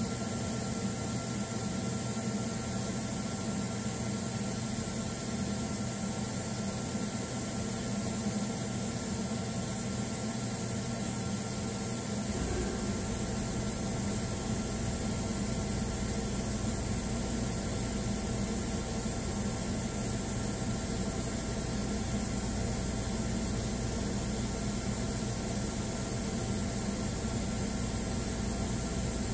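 Steady hiss with a mix of electrical hum tones from the CNC router and its shop equipment. A deeper low hum switches on about twelve seconds in and holds steady.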